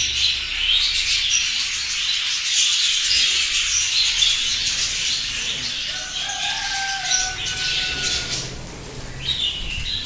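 A colony of budgerigars chattering and chirping together, many birds at once in a continuous high twittering.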